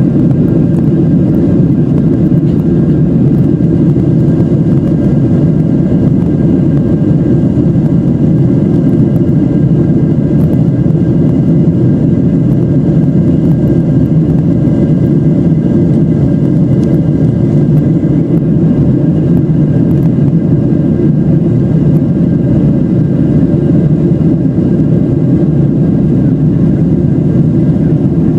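Boeing 737's CFM56 jet engines at takeoff thrust, heard inside the cabin over the wing during the takeoff roll: a loud, steady rumble with faint, steady whining tones above it.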